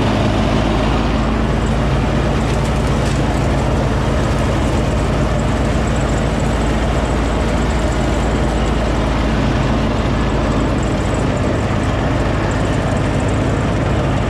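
John Deere ride-on lawn tractor running at a steady, even engine speed while mowing, with a faint high whine over the engine note.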